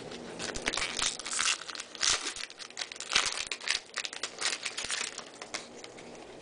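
Foil wrapper of a Topps baseball card pack being torn open and crinkled by hand: a dense run of irregular crackles and rips that tails off near the end.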